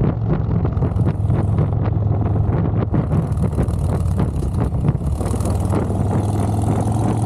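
Motorcycle engine running at a steady speed while riding, with wind rushing over the microphone.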